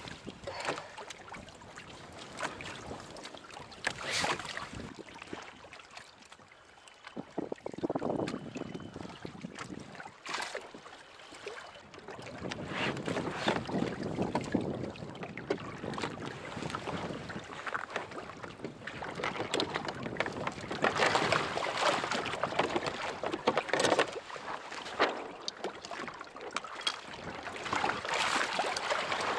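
Sea water sloshing and slapping against a sailing kayak's hull, with wind on the microphone and scattered small knocks and clicks; it grows louder in the second half.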